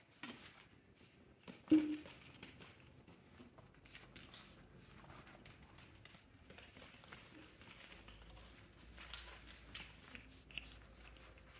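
Young pug puppies padding and scuffling about on blankets and bedding: soft, scattered rustling and scratching, with one brief louder sound a couple of seconds in.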